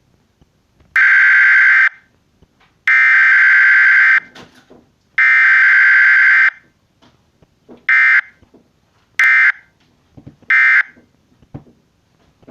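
Emergency Alert System SAME digital data bursts, a harsh buzzing tone. Three header bursts of about a second each come first, then three short end-of-message bursts.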